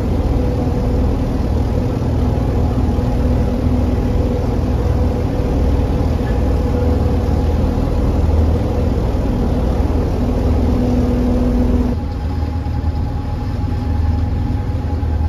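The large extractor fans of the Harecastle canal tunnel, which draw diesel fumes out of the tunnel, running with a loud, steady drone and low rumble. The hum changes about twelve seconds in.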